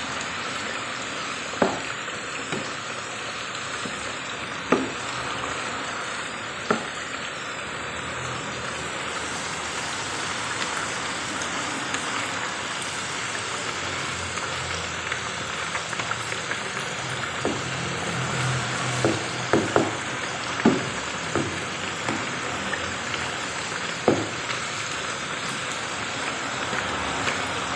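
Sliced sweet potatoes deep-frying in a pan of oil, a steady sizzle throughout. Now and then a spatula knocks against the pan as the pieces are stirred: a few times early on, several in quick succession past the middle, and once more later.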